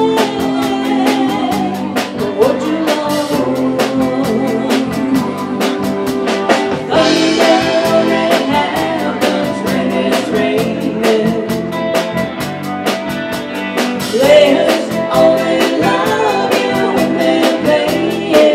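Live band playing: a woman singing over electric guitars and a drum kit keeping a steady beat.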